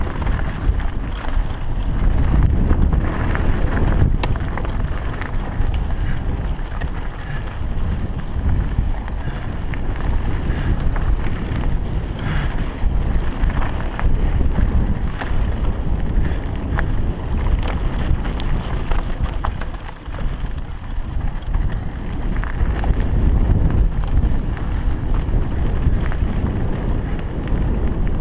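Wind buffeting the microphone of a mountain biker's action camera while riding, a steady low rumble with scattered clicks and rattles from the bike and its tyres on the trail.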